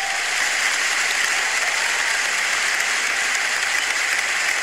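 Steady applause, an even wash of clapping greeting a guest's introduction.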